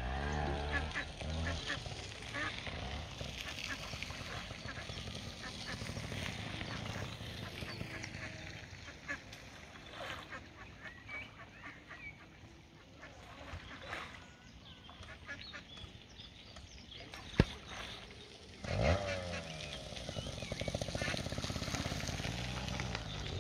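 Splashing water as a mute swan thrashes and plunges its head under to attack a duck, mixed with waterfowl honking and quacking calls. There is one sharp knock about three-quarters of the way through.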